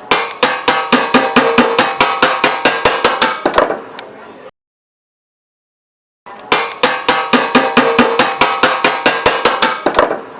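An iron plate struck rapidly, about six ringing metallic hits a second for three and a half seconds, then a short ring-out. After a pause of silence, the same run of strikes starts again.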